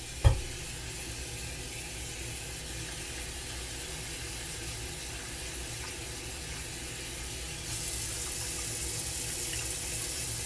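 Kitchen faucet running into a bowl of raisins in a stainless steel sink while they are rinsed by hand: a steady rush of water that gets louder about three-quarters of the way through. A single knock sounds just after the start.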